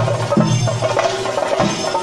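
Percussion music: drums struck in a steady rhythm, with strong low strokes at intervals of a fraction of a second, over dense metallic ringing.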